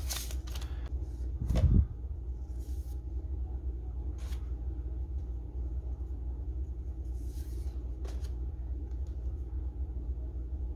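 Glossy paper lobby cards being handled and flipped through, giving a few brief soft rustles, with one low thump about two seconds in, over a steady low hum.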